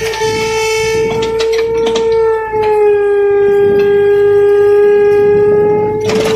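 Komatsu excavator working, with a loud, steady whine over a low rumble and scattered clunks. The whine dips slightly in pitch a couple of seconds in and comes back up near the end.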